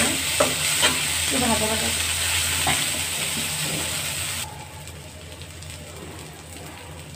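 Chopped onion, green chilli and coriander sizzling in hot oil in a metal wok while a metal spatula stirs them, with a few clinks and scrapes of the spatula on the pan. About four and a half seconds in, the sizzle drops off abruptly to a much quieter background.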